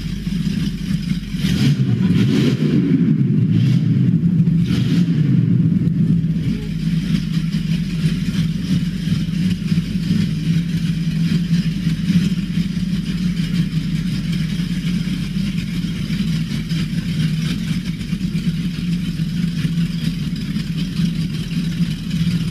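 Boat engines running steadily inside a concrete canal tunnel, with a brief rise and fall in engine pitch about two seconds in.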